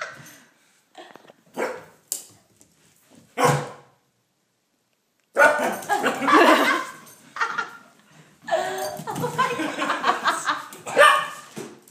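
Puppy barking: a few separate barks in the first four seconds, then, after a short silence, rapid barking in near-continuous runs.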